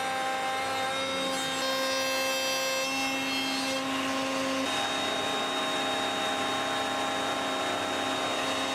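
An electric power tool running steadily on wood, with a constant motor hum that shifts in tone about four and a half seconds in.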